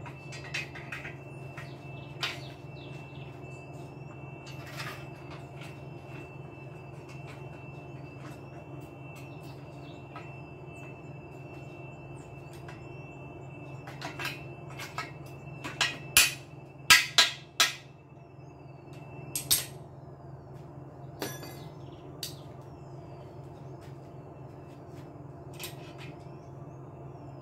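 Scattered sharp knocks and clanks, like tools or parts striking metal, loudest in a cluster of several hits about halfway through. Under them runs a steady low hum with a faint high whine.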